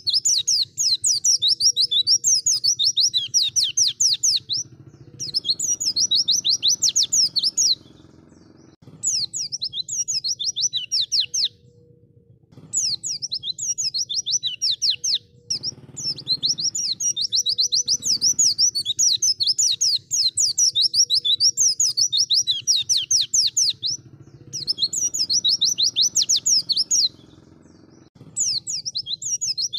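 White-eye (pleci) singing: rapid, chattering trills of quickly repeated high, downward-sliding notes, in phrases a few seconds long separated by short pauses.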